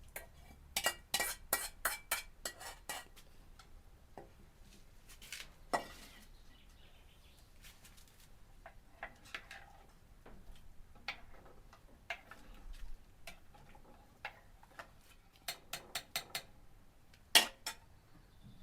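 Dishes and utensils clinking and knocking together. A quick run of clinks comes about a second in, scattered knocks follow, and a single loudest clink comes near the end.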